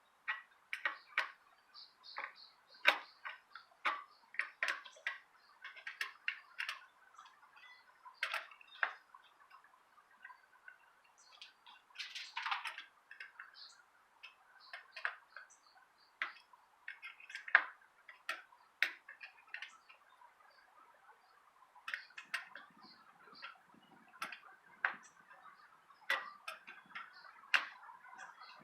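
Irregular sharp clicks and ticks, some in quick clusters, from hands-on truing of a folding electric bicycle's spoked wheel.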